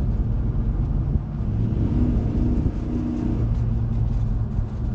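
Steady low road rumble and engine drone heard inside the cab of a Chevrolet Avalanche pulling a heavy, overloaded trailer, with a faint engine tone rising above the rumble for about a second and a half in the middle.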